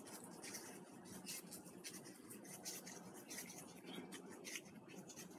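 Faint, quick scratchy rustling of a small seasoning packet of True Orange rubbed between fingertips to shake the crystals out.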